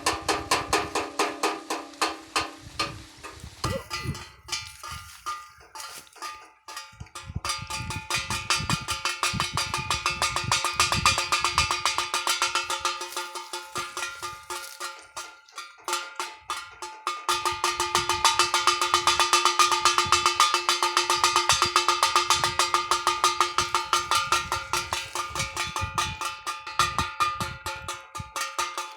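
A bird-scaring clapper clanging: metal struck rapidly and steadily, several strikes a second, each ringing with a clangy, bell-like tone. It fades down twice and is loudest in the second half.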